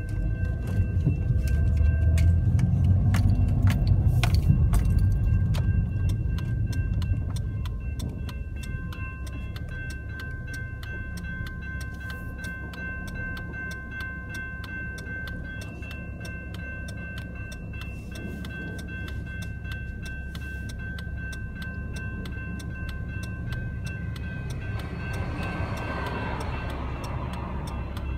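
Railroad crossing warning bell ringing steadily at about two strikes a second, over the low rumble of a car engine that is loudest for the first several seconds. Near the end the noise of a CAF light rail train passing through the crossing grows.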